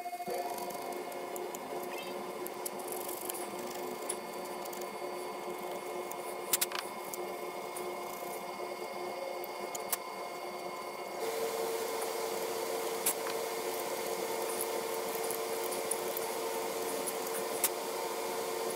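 A small power tool runs steadily while it cleans old gasket material off an engine's thermostat housing seal surface. It gets louder about eleven seconds in, with a few light clicks.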